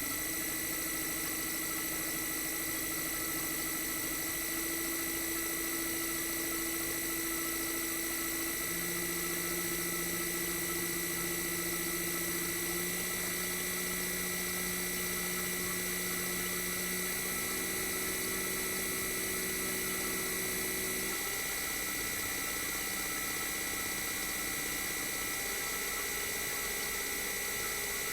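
Toshiba DA91A1F-42F twin rotary inverter compressor running bare, with its sound-deadening removed: a steady high inverter whine over lower tones that jump to a new pitch every few seconds as the inverter changes the compressor's speed.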